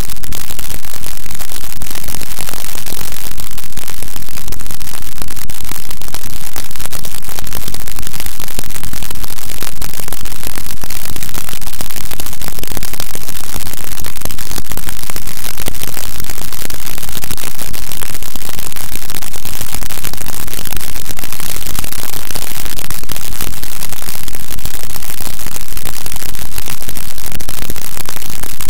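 Harsh noise music track: a loud, dense, unbroken wall of static-like noise spread across all pitches, with no beat, tune or pauses.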